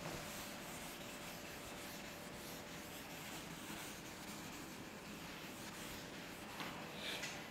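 Cloth duster wiping chalk off a chalkboard: faint, steady rubbing, a little louder near the end.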